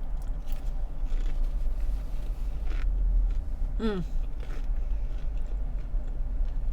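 Close-miked eating sounds, bites and chewing with short wet clicks, over a steady low rumble. A brief falling vocal sound comes about four seconds in.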